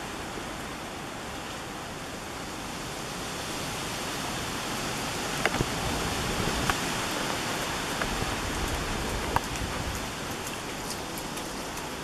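A steady rush of running water, with a few light clicks from a dog's paws stepping through wet mud.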